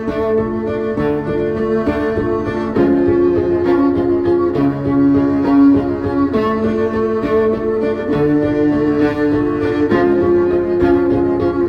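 Background music of slow, held chords that change every second or two.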